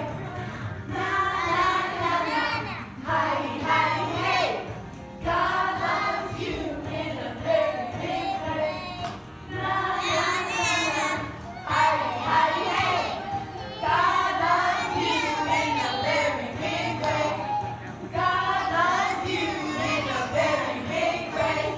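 A group of young children singing a song together in phrases, with short breaths between lines.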